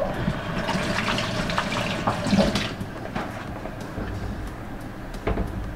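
Water running steadily for about two and a half seconds, then shutting off, followed by a couple of light knocks near the end.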